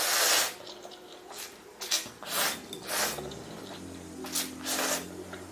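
Someone eating instant noodles: a series of short, noisy mouth sounds, the loudest right at the start and several more spaced through the rest.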